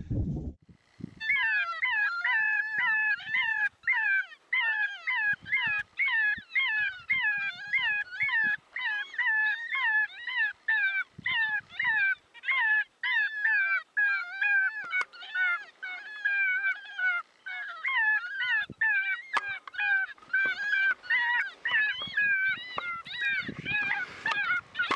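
Electronic predator caller playing a gray fox fight sound: rapid, repeated yelps, two or three a second, starting about a second in. A brief low thump comes near the end.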